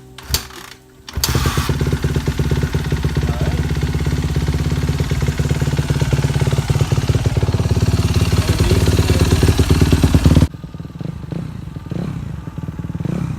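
Suzuki RM-Z dirt bike's four-stroke single-cylinder engine starting up about a second in and running steadily, its first run after a fresh oil and filter change. The loud running drops off suddenly about ten seconds in.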